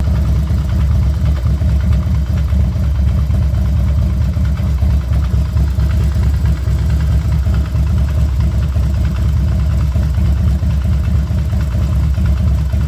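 Harley-Davidson Road King's Twin Cam 88 V-twin engine running steadily at idle, a loud, even, low-pitched sound.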